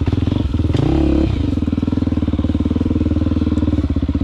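Motorcycle engine running under way, with a brief rise in revs about a second in before settling back to a steady pace.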